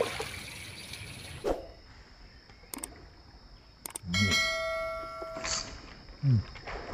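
A single bell-like ringing tone starts suddenly about four seconds in and holds steady for about a second and a half, after a few sharp clicks. A short, loud, low sound falling in pitch follows near the end.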